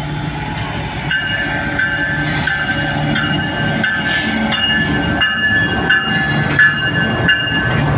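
GEU-40 diesel-electric locomotive passing close, its bell ringing in steady strokes about one and a half a second from about a second in, over the low running of its diesel engine and a few wheel clicks.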